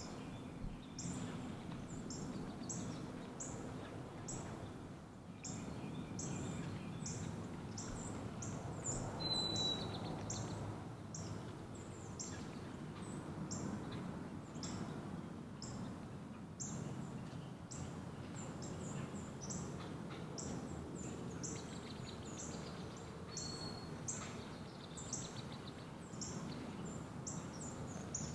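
A small bird giving short, high chirps over and over, about two a second, with a couple of brief whistled notes, over a steady low background rumble.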